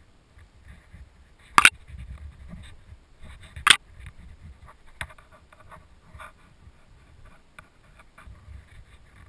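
Two sharp airsoft gun shots about two seconds apart, followed by a fainter click, over low rumble and scuffing of movement.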